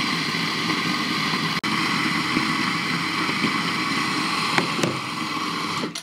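Eureka Mignon Specialità electric flat-burr coffee grinder running steadily, grinding a dose of espresso beans into a portafilter. It cuts off near the end.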